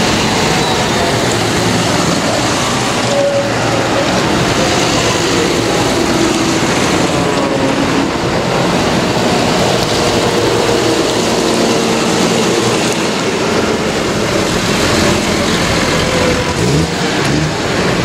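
Large farm tractors driving past one after another, their diesel engines running with a steady drone over tyre noise. A blue New Holland goes by first and the next tractor follows close behind, its engine note rising near the end.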